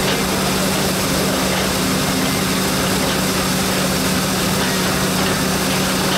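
Belt-driven threshing machine running at working speed while sheaves are fed into it: a steady hum over a constant dense mechanical noise.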